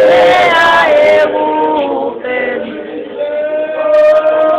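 Church congregation singing together, men's and women's voices on long held notes, with a few sharp percussive sounds near the end.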